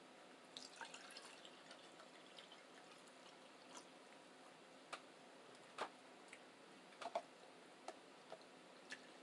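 Faint eating sounds of people chewing breakfast: soft, scattered clicks, a small cluster in the first second and a half, then single clicks about once a second.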